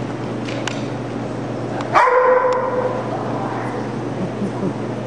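A dog gives one loud bark about two seconds in, its tone trailing on for about a second.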